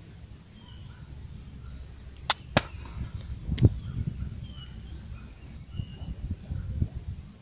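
Three sharp clicks, two close together about two seconds in and a third about a second later, over a steady low rumble, with a few faint high chirps.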